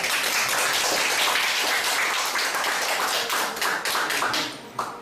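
A small audience applauding, many hands clapping together, thinning out and dying away about four and a half seconds in.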